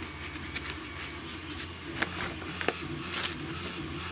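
Handling noise from packaging and parts being moved about by hand: soft rustling with a few sharp clicks and taps, the clearest about halfway through and near the end, over a steady low hum.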